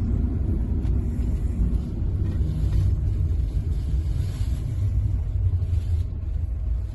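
Low, steady rumble of a car's engine and tyres on the road, heard from inside the moving car's cabin.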